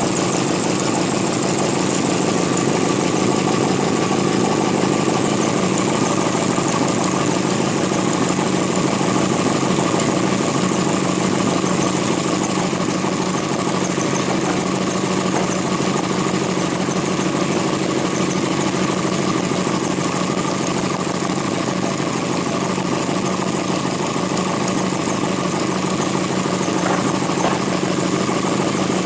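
Scratch-built model four-cylinder vacuum (flame-licker) engine with alcohol burners, running steadily with a fast, even mechanical ticking.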